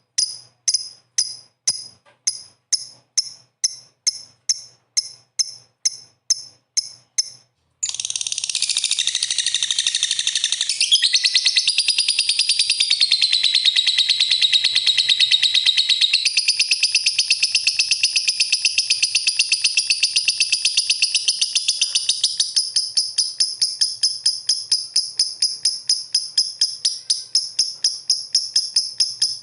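Lovebird calling with shrill, evenly spaced chirps, about two or three a second. About eight seconds in, it breaks abruptly into a dense, continuous chattering trill. Near the end the trill thins back into rapid chirps.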